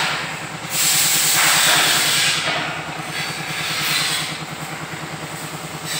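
Isuzu FVZ truck's diesel engine idling with a steady low pulse, overlaid by a loud hiss that swells about a second in and fades after two seconds, and a weaker hiss near four seconds.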